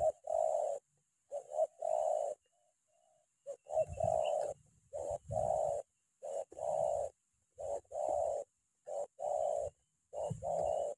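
Spotted dove cooing in quick, closely spaced phrases: a short note then a longer coo, about eight times, roughly one pair every second and a quarter. This is the pressing, rapid calling (tekanan rapat) of a decoy spotted dove used to lure wild ones.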